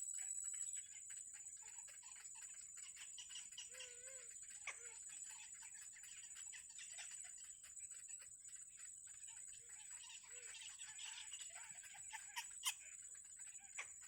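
Faint bird chirping over a steady high-pitched hum, with one brief lower call about four seconds in and a sharp click near the end.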